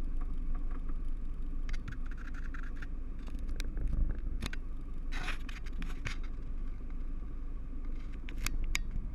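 Yamaha Rhino 660 side-by-side's single-cylinder engine running steadily on a trail ride, with scattered clicks and a scrape about five seconds in.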